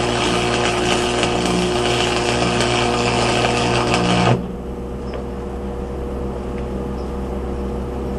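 Stick-welding arc from a Hobart Stickmate running a 6011 rod, crackling and sizzling steadily over a low mains-like hum. About four seconds in the arc breaks off suddenly, and only the quieter steady hum remains.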